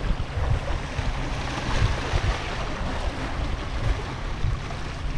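Sea waves washing against shoreline rocks, with wind buffeting the microphone in uneven low gusts.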